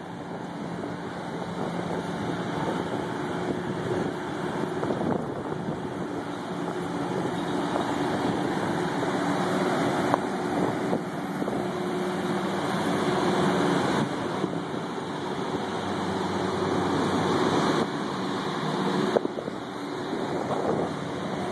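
Rooftop HVAC equipment, cooling-tower and air-handling-unit fans, running with a steady hum of several low tones. Over it is a rushing noise that swells and fades, wind on the microphone.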